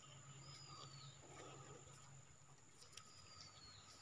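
Near silence, with a faint bird call heard twice about two and a half seconds apart, each a short falling whistle, over a thin steady high tone.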